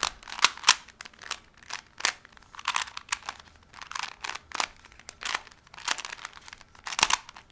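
Plastic 3x3 Rubik's Cube being turned quickly by hand, its layers clicking and clacking as they snap round, several irregular clicks a second.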